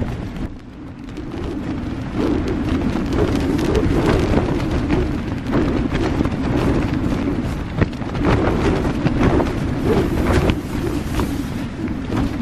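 Strong wind buffeting the microphone in gusts, with a rumbling low noise, growing louder about two seconds in.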